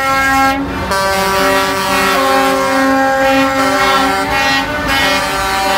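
Air horns of several cement mixer trucks sounding together, overlapping steady tones of different pitches that change as horns start and stop, over the low rumble of the trucks.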